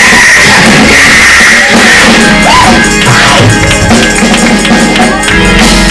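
Loud live church praise music from a band, with percussion hits through the second half.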